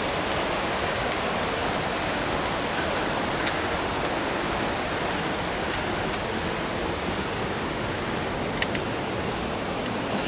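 Waterfall and river rapids rushing steadily.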